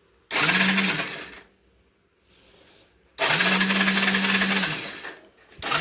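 Electric starter motor of a 1991 Honda TRX200D ATV cranking the engine in three bursts: a short one, a longer one of about a second and a half, and a third starting near the end. Each burst comes quickly up to a steady whirring pitch and drops away when it stops.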